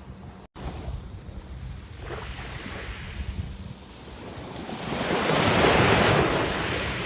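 Sea waves breaking and washing in: a small swell about two seconds in, then a larger wave building to its loudest around six seconds and easing off. Wind rumbles on the microphone underneath, and the sound cuts out for an instant about half a second in.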